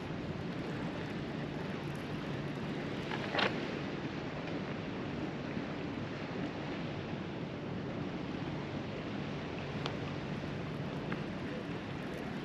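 Steady wind noise on the microphone over the sea, with one brief sharp sound about three and a half seconds in.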